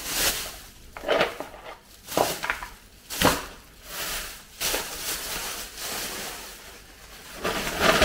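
A thin plastic bag rustling and crinkling in repeated short bursts, about one a second, as it is handled.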